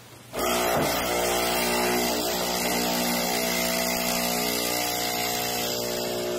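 Nespresso CitiZ capsule espresso machine's vibratory pump starting up about a third of a second in and running with a steady buzz, pumping water through the capsule as an espresso shot brews.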